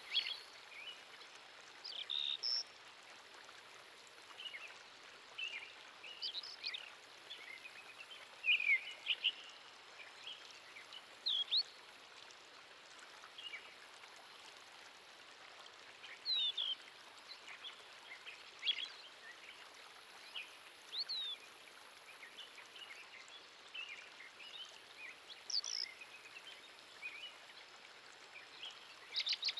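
Birds chirping in short, scattered calls and quick sweeping notes over a steady outdoor hiss, with a faint, very high sound that comes and goes.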